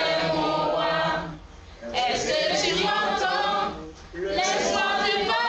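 A group of voices singing unaccompanied, in phrases broken by two short pauses.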